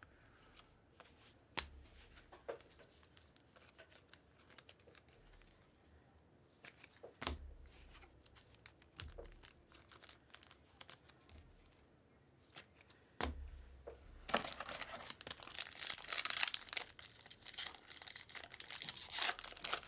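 A few light clicks and taps of cards being handled, then, about 14 s in, a foil trading-card pack being torn open, its wrapper crinkling and crackling continuously.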